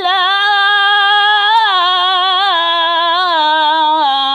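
A man chanting Qur'an recitation in melodic tajweed style, drawing out one long ornamented note with small wavering turns. The pitch steps down near the end.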